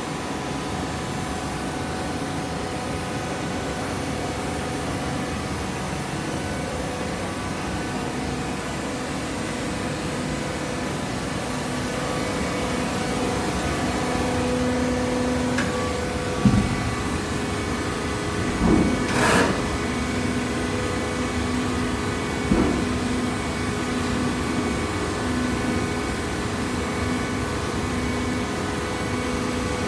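Automatic horizontal baler for coconut fibre running with a steady machine hum. About halfway through come a few metallic clanks and knocks, the loudest a short cluster.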